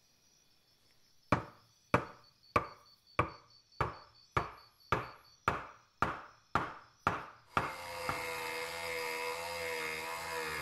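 About a dozen sharp, evenly paced hammer blows drive a metal pin into the hole in a wooden hammer handle. About seven and a half seconds in, a handheld rotary tool with a small sanding drum starts, whining steadily as it grinds the pin end flush.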